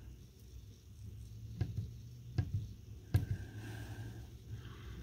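Plastic buttons on a plug-in electricity usage meter pressed, three soft clicks well under a second apart, over a faint steady low hum.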